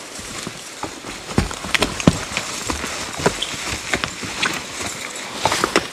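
Belgian draft horses walking downhill over dry fallen leaves on the forest floor: irregular hoof thuds with leaves rustling under them.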